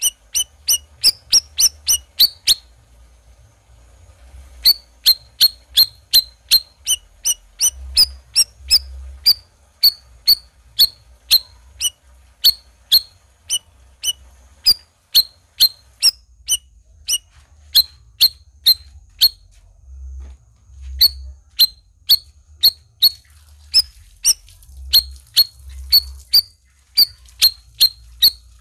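Cucak rawis bird calling: a long run of short, sharp, high chip notes, about two a second, with a pause of about two seconds near the start and a few shorter breaks.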